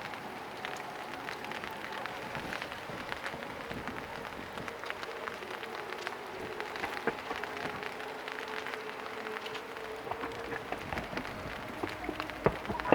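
Steady rain pattering, with many small drops ticking close by.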